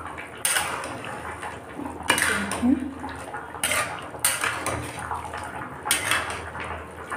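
Steel spatula scraping and clinking against a steel kadhai while stirring Manchurian balls in gravy, about six strokes a second or so apart.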